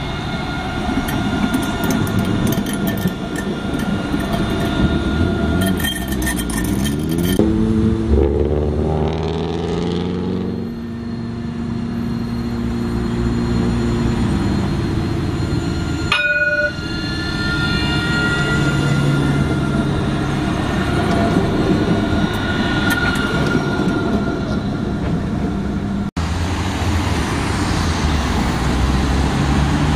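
Nottingham Express Transit trams running past on street track, their electric drive whining in steady tones that rise in pitch as a tram pulls away. Near the end, road traffic: cars and a bus driving through a junction.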